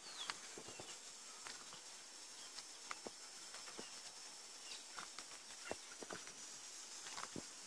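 Insects buzzing steadily at a high pitch, with scattered soft clicks and a few short, high, falling chirps.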